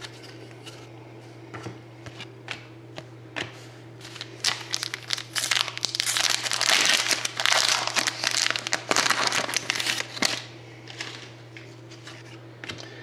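Hockey trading-card pack wrapper being handled and torn open: a few light clicks and taps, then about six seconds of dense crinkling and crackling in the middle, dying down near the end.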